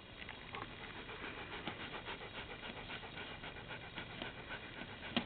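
Dog panting steadily, about three breaths a second, with a sharp click near the end.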